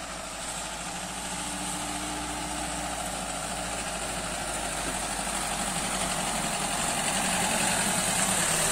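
Mahindra Bolero SUV's diesel engine running at low speed as the vehicle drives up a dirt road, growing steadily louder as it approaches.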